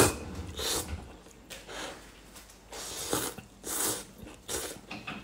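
A person slurping rice noodles of luosifen from chopsticks: a series of short, noisy sucking slurps, about seven, the loudest right at the start.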